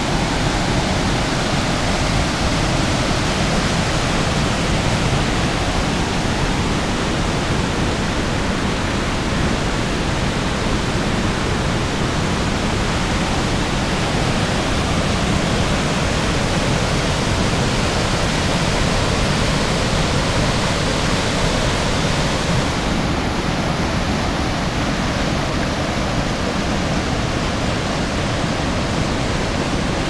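Athabasca Falls, the Athabasca River plunging into its gorge, heard up close: a loud, steady, unbroken rush of falling and churning water.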